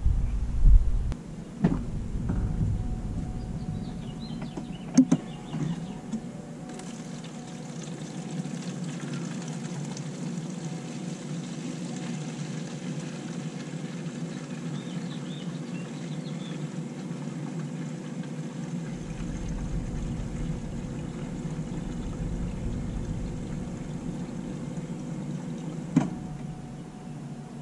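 Electric fuel lift pump running steadily, with diesel fuel flowing through the new line, and a few sharp clicks and knocks of tools and fittings.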